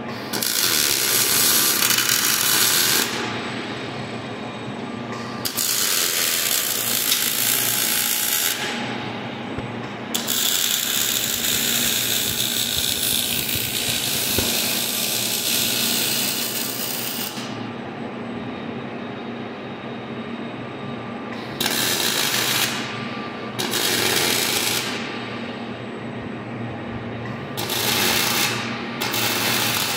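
Robotic MIG welding arc crackling on steel in seven separate welds: short bursts of one to three seconds, with the longest, about seven seconds, near the middle. A lower steady machine hum fills the gaps between welds.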